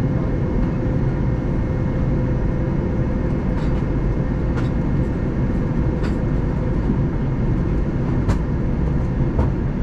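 Steady cabin drone of an Airbus A321neo airliner in flight, heard from inside the cabin near the front: engine and airflow noise with a faint steady hum, during the descent towards landing. A few light clicks come through it.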